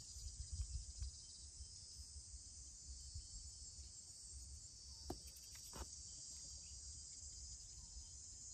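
Faint, steady high-pitched chorus of field insects, with a low rumble underneath and two light clicks about five and six seconds in.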